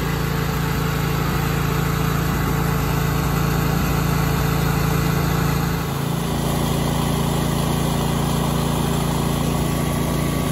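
Briggs & Stratton Intek V-twin riding-mower engine running steadily with an even hum, fitted with a new fuel pump and no longer running rich.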